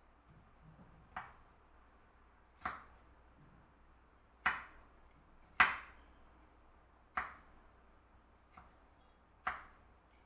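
Knife chopping on a cutting board: about seven separate strokes, roughly one every second or so, each a sharp knock.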